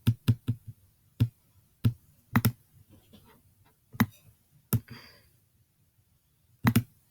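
Computer mouse clicks while placing parts in a 3D brick-building program: a quick run of about four at the start, then single and double clicks at uneven gaps.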